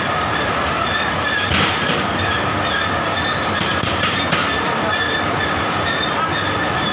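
Long steel chain conveyor of a rubber-glove production line running: a steady metallic clatter with short high squeals coming and going.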